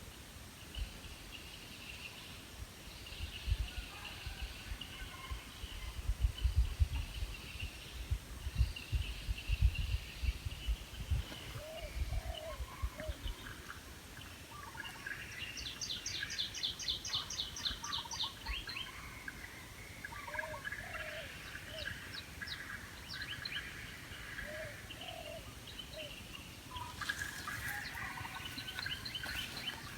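Birds calling and chirping in the open, with a fast, rattling trill in the middle. Low thumps and rumble in the first third are the loudest sound, typical of wind or handling on the microphone.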